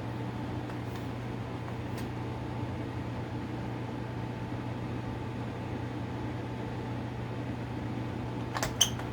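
Steady low hum with a hiss of background noise. Near the end come a few sharp plastic clicks from a smoke alarm being handled and its test button pressed.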